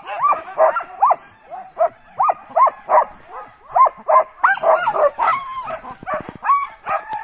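Sled dogs barking and yelping excitedly, a quick run of short high calls, several overlapping at times.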